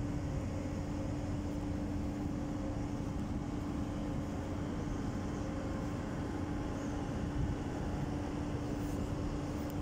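Steady mechanical drone at one constant pitch over a low rumble, plausibly from the aircraft ground air-conditioning cart blowing air through its duct into the parked jet.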